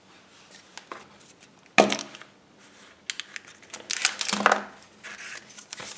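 A yellow plastic Kinder Surprise capsule snapping open with one sharp click a little under two seconds in. After it come lighter clicks and the crinkling of the clear plastic wrapper around the toy inside.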